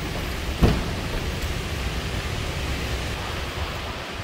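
Steady rushing noise, heaviest in the low end, with one sharp thump about half a second in.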